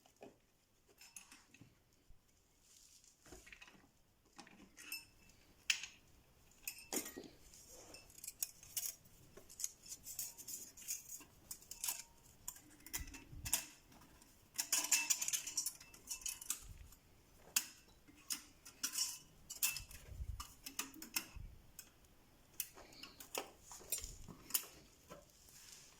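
Scattered metallic clinks, taps and clatter of hand tools and small engine parts being handled during scooter engine reassembly. A denser, louder burst of rattling comes about fifteen seconds in.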